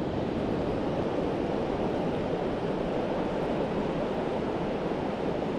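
Steady rush of flowing river water, an even unbroken hiss.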